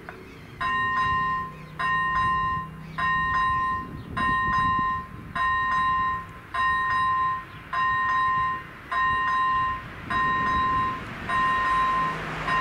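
Level crossing's electronic warning bell sounding a steady beep, starting about half a second in and repeating about once every 1.2 seconds, as the crossing activates to warn of an approaching train.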